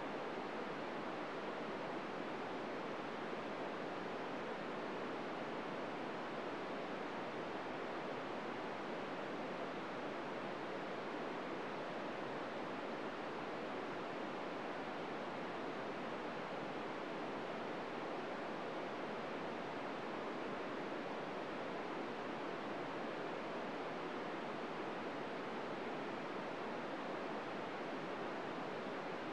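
FM receiver tuned to 145.800 MHz giving a steady static hiss with no SSTV tones in it: nothing is being received, the ISS being only a few degrees above the horizon near loss of signal.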